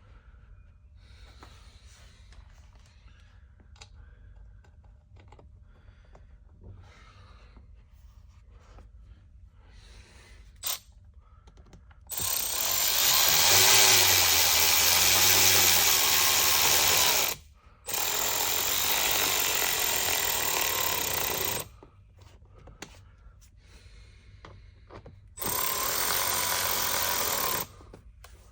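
Power tool fitted with a socket running in three spells of a few seconds each, the first two close together and the third after a short pause, with faint handling clicks beforehand.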